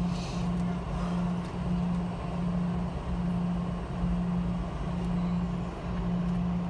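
Cabin noise inside a Boeing 717-200 airliner taxiing: a steady low rumble and hiss from the jet engines and airframe, with a loud low hum that pulses on and off about every 0.7 seconds.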